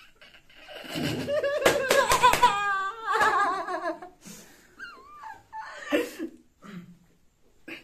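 Young men laughing: one bursts into loud laughter about a second in, with a few sharp clicks inside the burst. The laughter then trails off into quieter giggles and chuckles with a high, sliding squeal near the middle.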